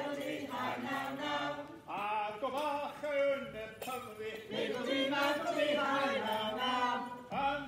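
Men singing a folk song together, voices changing notes smoothly with short breaks between phrases.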